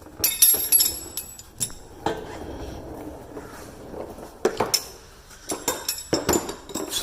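Metallic clinks and rattles of metal parts being handled, in short clusters about half a second in, again around four and a half seconds, and around six seconds.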